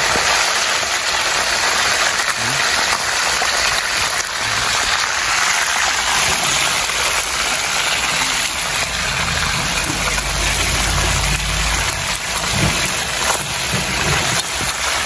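Whole red snapper deep-frying in hot oil in a wide metal pan: a steady sizzle, with a low rumble joining for a couple of seconds around ten seconds in.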